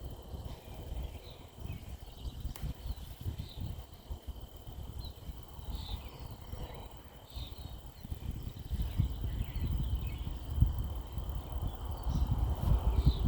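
Outdoor garden ambience: short bird chirps about once a second over a steady insect drone. Low rumbling noise on the microphone grows louder in the second half.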